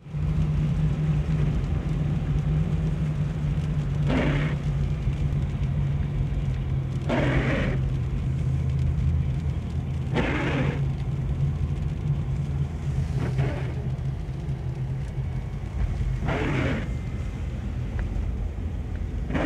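Car cabin noise from a moving car on a wet road: a steady low engine and road hum, with a short swish about every three seconds from the windscreen wipers sweeping away rain.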